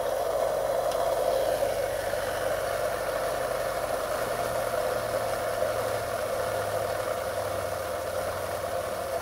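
3D-printed magnet rotor of a pulse motor spinning fast on ceramic bearings over its coil: a steady running noise with a low hum that drifts slightly lower in pitch.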